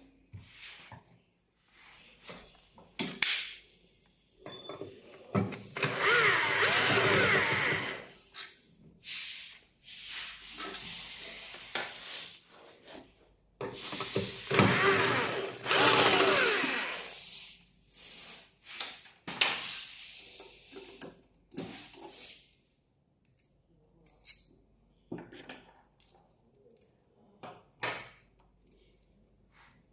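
Electric screwdriver running in short runs with its pitch rising and falling, the two longest runs about six and fourteen seconds in. Between them come clicks and knocks of parts and screws being handled.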